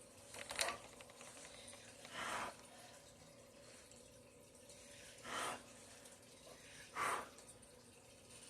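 Four short puffs of breath blown over wet acrylic pour paint, pushing the paint across the coaster.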